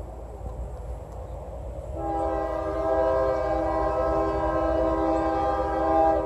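Multi-chime air horn of an approaching GE ES40DC diesel locomotive, sounding one long blast that starts about two seconds in. A low steady rumble runs underneath.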